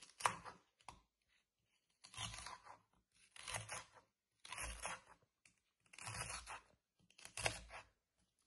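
A kitchen knife slicing through a raw fennel bulb and onto a wooden cutting board. It makes about six crisp, crunchy cuts, roughly one a second, each ending in a dull knock on the board.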